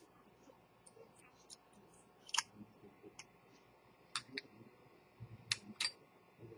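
Light, irregular clicks and taps from a stainless-steel watch case being handled and turned on a workbench. The sharpest come about two and a half seconds in and again three times in the last two seconds.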